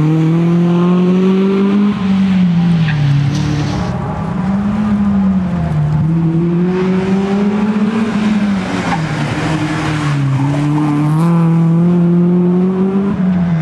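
BMW E36 coupe rally car's engine revving hard under full throttle, its note climbing and dropping again and again with the gear changes and lifts between corners.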